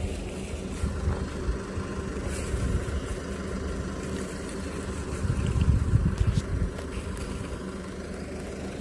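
Wind rumbling on the microphone, gusting harder around the middle, over a steady low engine hum.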